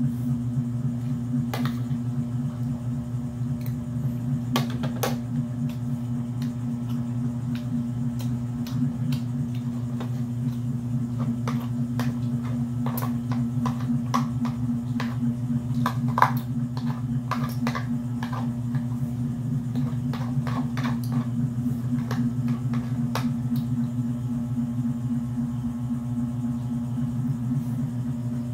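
A steady low hum runs throughout, with scattered small clicks and cracks as a cooked mud crab's shell is picked apart by hand and eaten, busiest in the middle.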